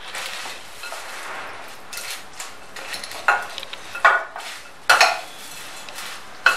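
A spoon stirring and tossing bhel puri in a glass bowl: a steady rustle of puffed rice and crisp namkeen mixed with chutney, with four sharp knocks of the spoon against the bowl from about three seconds in.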